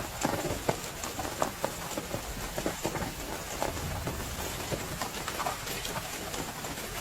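Heavy rain falling steadily, with irregular sharp drops tapping on a close surface over a constant hiss.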